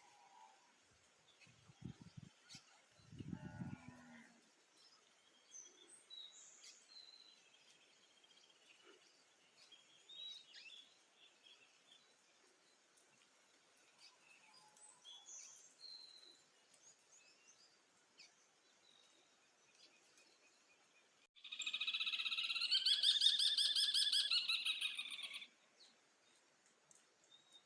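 Songbirds chirping sparsely at dawn, with a couple of low thuds a couple of seconds in. About three quarters of the way through, one bird close by gives a loud, rapidly pulsing call lasting about four seconds.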